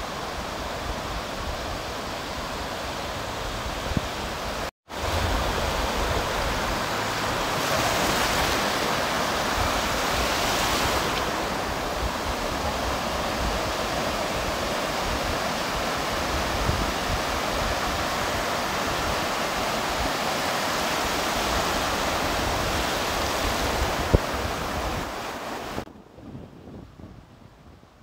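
Atlantic surf breaking and washing up the beach in a steady rush, with a louder surge around eight to eleven seconds in. Wind on the microphone adds a low rumble. The sound drops off sharply to a quieter level near the end.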